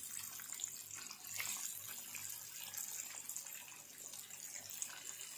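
Flour-coated mutton chops deep-frying in hot oil, a steady faint sizzle with small crackles scattered through it.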